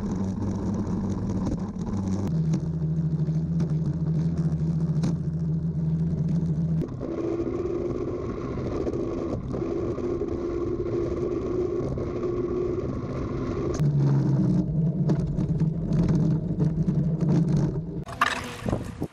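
A rail bike rolling fast along steel rails: its rollers and bicycle tyre make a steady rumble with a droning hum. The hum's pitch shifts twice, and scattered clicks and knocks come through in the last few seconds.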